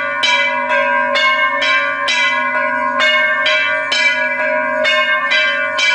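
Temple bell struck over and over at an even pace of about two strikes a second, each ring carrying on into the next.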